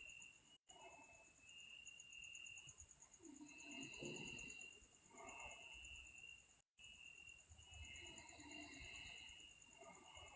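Faint, slow breathing of a sleeping person, one breath about every four to five seconds, under a steady, high-pitched pulsing chirr.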